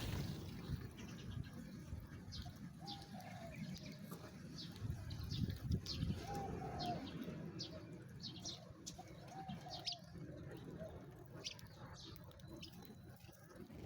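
Sparrows chirping: many short, high chirps in irregular runs, with a few lower, softer arching calls among them.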